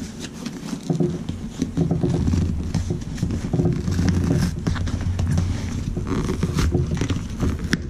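Cardboard packaging being torn open and packing paper rustling and crackling in irregular bursts, over a steady low, pulsing hum.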